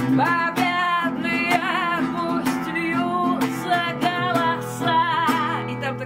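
Acoustic guitar strummed steadily while a voice sings a wavering melody line over it, with no clear words.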